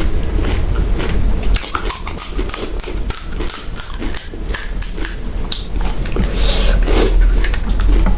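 Pani puri being eaten close to the microphone: the crisp puri shells crunch and crackle in a quick run of sharp clicks, mixed with wet chewing, becoming busy about a second and a half in.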